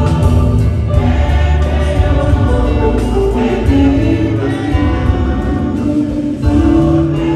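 A church choir singing a hymn in held, sustained notes over an instrumental accompaniment with a heavy bass.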